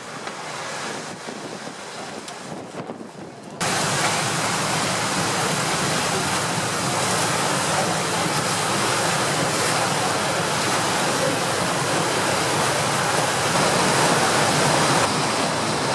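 Steady rushing of churned water and wind aboard the paddle steamer Waverley under way. About three and a half seconds in it jumps suddenly to a loud, even rush.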